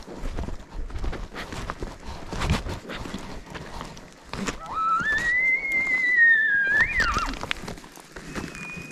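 Footsteps clattering over loose rock in the first half. Then a single elk bugle about halfway in: one long whistled call that climbs, holds high, breaks to a brief higher peak and drops away.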